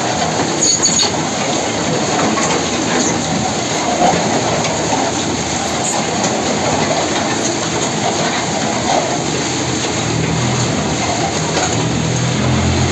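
Twin-shaft concrete mixer of a batching plant running, its paddle arms churning and slapping through wet concrete in a steady, dense churning clatter.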